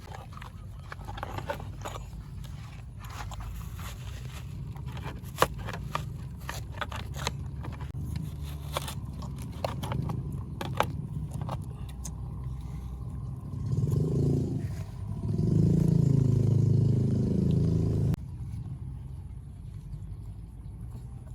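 Scattered sharp clicks and scrapes, then a motor vehicle engine running loudly for about four seconds that cuts off suddenly.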